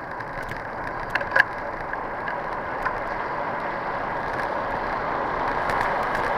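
Bicycle riding on an asphalt road: a steady rush of tyre and wind noise that slowly grows louder, with a few sharp rattling clicks from the bike about a second in and once more near three seconds.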